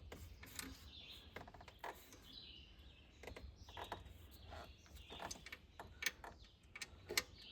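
Faint, irregular metallic clicks and ticks of hand-tightening the alternator's mounting bolts on a 2010 Ford F-150, with a quick run of ratchet clicks about a second and a half in. Faint bird chirps sound in the background.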